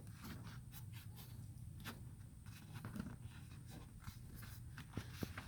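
Faint handling noise: scattered light clicks and short scrapes, over a steady low hum.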